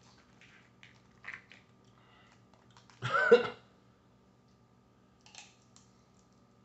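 A person eating boiled crawfish: faint clicks as the shells are handled and pulled apart, and one loud, short mouth sound about three seconds in as a crawfish is brought to the mouth, over a faint steady hum.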